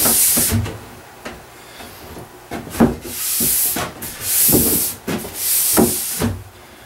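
Fine stainless steel brush scrubbing along a ski's base in four short, scratchy strokes, with a pause after the first and a few light knocks between strokes. The brushing pulls old, dirty wax out of the base structure before waxing.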